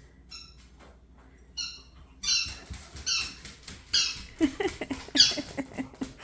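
Squeaker in a dog's ball squeaking again and again as the dog bites and chews it, a string of short high-pitched squeaks that grow louder about two seconds in.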